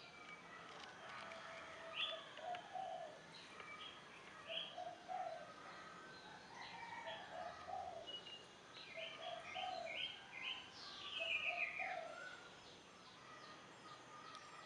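Birdsong: a dove cooing in short low phrases about every two seconds, while other birds chirp at a higher pitch; a louder falling run of chirps comes near the end.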